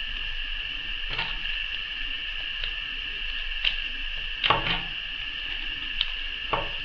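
A few short clicks and rustles of wooden barbecue skewers and adhesive tape being handled while the skewers are taped together, the loudest a little past halfway, over a steady high-pitched whine.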